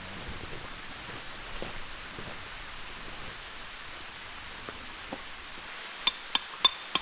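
A steady, even rain-like hiss of outdoor ambience, with faint rustles and small knocks as heavy tent canvas is handled on gravel. About six seconds in, music starts with sharp, ringing wood-block-like percussion hits, about three a second.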